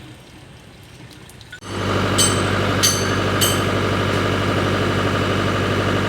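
A bulldozer's diesel engine comes in abruptly about a second and a half in and runs steadily and loudly, with three sharp clicks soon after.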